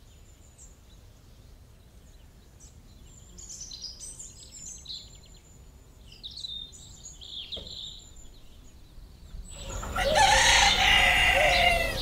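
Small birds chirping and trilling faintly, then about ten seconds in a rooster crows loudly.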